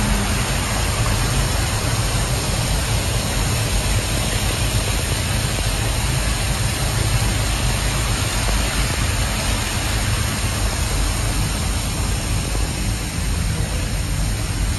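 Thermal spring water, stained orange by iron, pouring steadily over a small weir into a stone channel: a loud, even rush of falling water.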